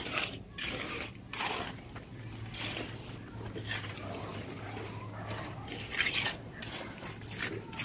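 Irregular short scrapes of a steel trowel smoothing wet concrete. A low steady hum runs under them for a few seconds in the middle.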